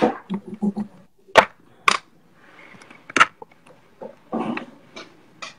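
A woman's muffled crying behind her hand: a few sharp sniffs and catches of breath, with short strained vocal sounds.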